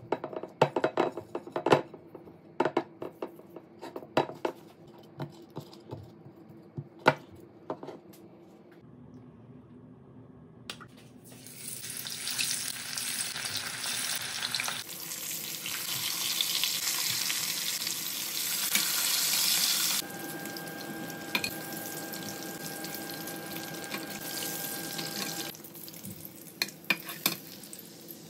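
A series of sharp clicks and taps for the first several seconds. Then, from about twelve seconds in, hilsa fish steaks sizzle in hot oil in a wok, a steady frying hiss that jumps in level a couple of times before dropping away near the end.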